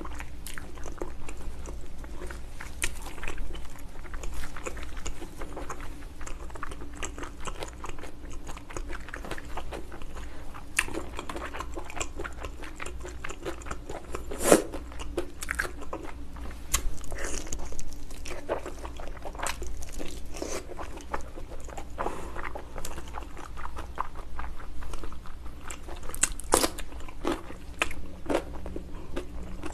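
Close-miked biting and chewing of braised ox foot in spicy sauce: a steady run of small clicks and smacks, with a sharper snap about halfway through and another near the end.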